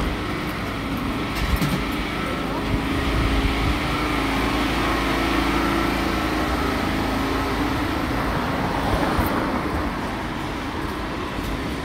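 City street traffic: a steady mix of vehicle engines and road noise, growing a little louder in the middle as traffic goes by.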